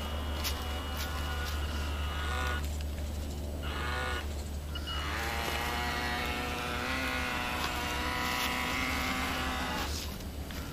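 Small electric motor of a radio-controlled model speedboat running with a whine whose pitch rises and falls with the throttle, easing off briefly twice, over a steady low rumble.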